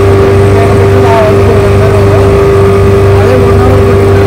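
Outboard motor on a small tourist boat running at steady speed, an even drone with a constant hum, with a man's voice talking under it.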